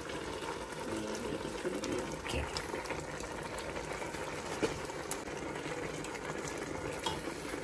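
Large steel pot of mung bean porridge boiling, a steady bubbling hiss, while a ladle stirs it and clicks faintly against the pot a few times.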